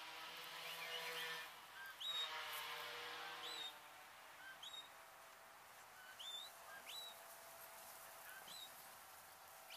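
Two long, low, steady moos from beef cattle, each a second and a half to two seconds long, in the first few seconds. Small birds chirp throughout with short, high, upswept notes every second or so.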